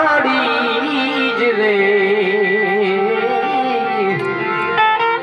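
Live Gujarati folk singing: a singer holds long, wavering notes over harmonium accompaniment. About four and a half seconds in the voice drops away and a run of short, clipped instrumental notes takes over.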